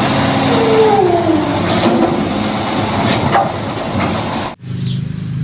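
Heavy truck engine running loud, with a rushing noise and a tone that slides down in pitch about a second in. It cuts off abruptly near the end.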